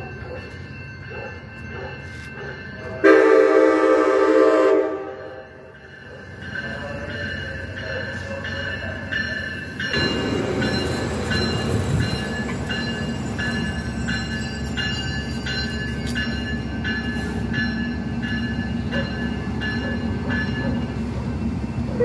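Passenger train sounding its horn in one loud blast of about two seconds, about three seconds in, as it approaches. Its bilevel cars then roll past close by with a steady rumble from about ten seconds in.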